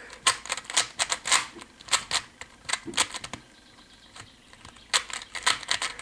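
3x3 Rubik's cube being turned by hand: quick clicking and clacking of the plastic layers, pausing for about a second past the middle, then resuming.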